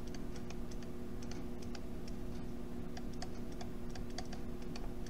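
Stylus tapping and scratching on a pen tablet during handwriting: faint, irregular ticks, several a second, over a steady low hum.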